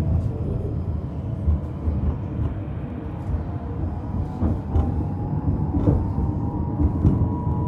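Vityaz-M low-floor tram running, a steady rumble with a thin whistle around two high tones, one of them rising slightly in pitch in the second half, and a few sharp clicks. The whistle is the strange noise this tram makes while running.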